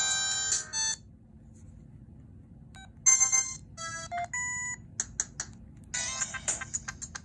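Audiovox CDM-8900 cellphone ringtones. One synthesized ringtone melody cuts off about a second in, and after a pause of about two seconds the next one starts: short beeping notes, a held beep, then a quick run of staccato notes.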